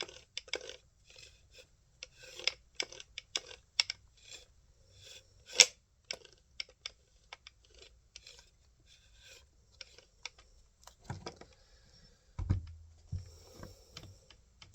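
Irregular clicks, taps and short scraping rubs of small metal tools and parts being handled on a workbench, with a heavier thump near the end as something is set down.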